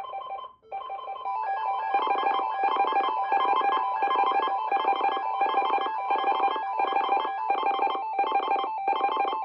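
Emergency alert attention signal: the two-tone alarm of 853 and 960 Hz sounding as a few separate beeps, then pulsing about twice a second.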